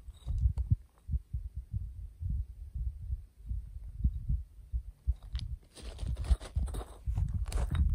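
Wind buffeting a phone's microphone: an irregular low rumble, with a few crunching scuffs in the last few seconds.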